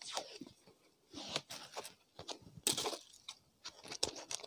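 Black duct tape being pulled off the roll, with quiet crackling rips and clicks, then a strip cut with scissors near the end.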